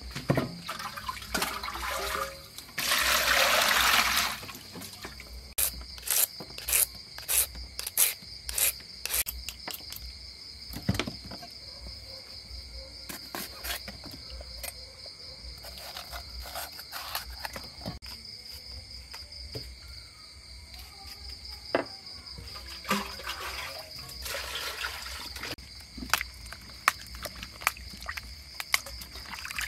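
Vegetables set down in an aluminium basin with a quick run of light knocks, and water poured and splashing in the basin as they are washed. There is a loud rush of about a second near the start and a second splashy stretch in the last third, over a steady high insect drone.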